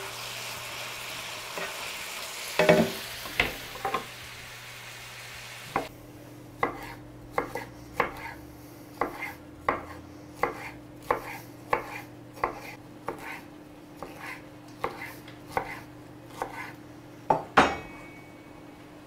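Duck and plum slices sizzling in an electric frying pan, with a few knocks of a utensil stirring them. About six seconds in the sizzle stops and a knife chops a red pepper on a wooden chopping board in steady strokes, about one and a half a second, with two heavier chops near the end.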